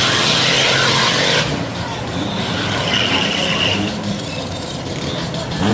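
Drag-racing truck's engine at full throttle down the eighth-mile strip. Its noise drops off about a second and a half in as the truck pulls away toward the finish.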